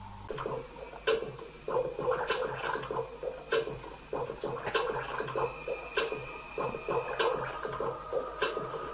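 Soundtrack of a phone video, mirrored over an Anycast dongle, playing through a television's speaker: a continuous rushing, scraping noise with sharp clicks about once a second and a faint high tone through the middle.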